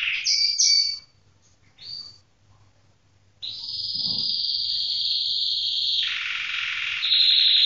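Red agate canary singing: a few short notes, a pause of about two seconds, then long rapid trills that shift in pitch twice, the last one loudest.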